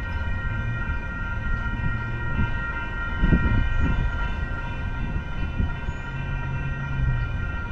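Steady machine whine of several high tones over a low rumble, with a brief louder low rumble about three seconds in.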